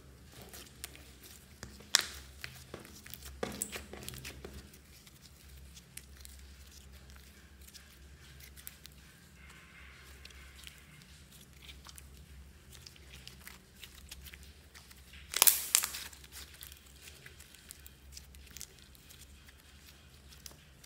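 Glitter slime being stretched, folded and pressed by hand: a run of soft sticky crackles and small pops, with a sharp pop about two seconds in and a loud cluster of snapping pops about three-quarters of the way through.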